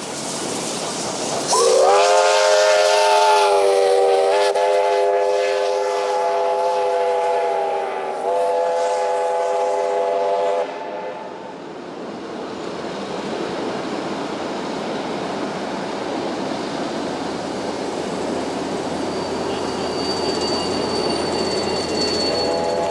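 Victorian Railways A2-class steam locomotive sounding a long whistle blast as it passes, with a brief break about eight seconds in before it stops near the halfway point. The rest is the steady rumble and clatter of its wooden carriages rolling by, and the whistle starts again right at the end.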